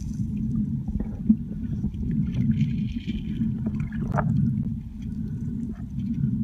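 Muffled low underwater rumble of water moving around the camera, with scattered faint clicks and crackles.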